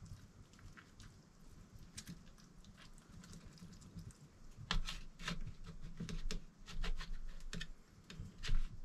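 Metal utensil tapping and scraping against a metal baking pan as cooked salmon is cut into portions: a series of short clicks, louder and more frequent from about halfway.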